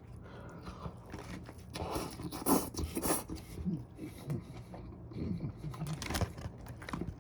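A person chewing and biting food close to the microphone: irregular crunches and wet mouth clicks, with a few louder crunches a few seconds in.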